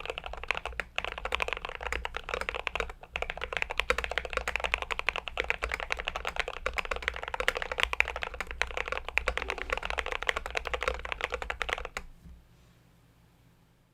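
Glorious GMMK Pro mechanical keyboard being typed on fast, a dense, continuous run of keystroke clacks that stops suddenly about twelve seconds in.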